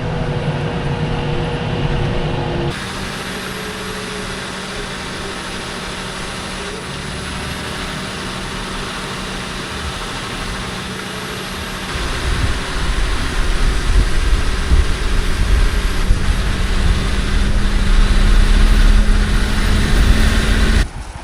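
Engines of haying machinery running steadily. The sound changes abruptly about three seconds in and again near the end. From about twelve seconds in, a deeper and louder rumble builds.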